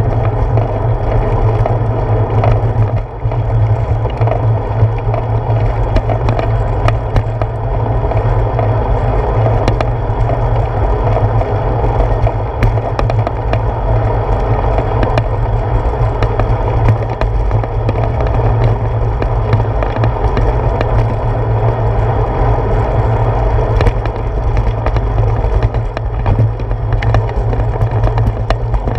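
Bicycle riding over pavement, heard through a handlebar-mounted GoPro: a steady low rumble of wind and road vibration with frequent small clicks and knocks, and a brief drop about three seconds in.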